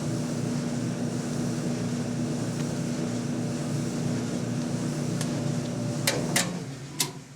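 Clothes dryer running, a steady motor and drum hum, started with the welded-on makeshift knob. Near the end come a few sharp clicks, and then the hum dies away.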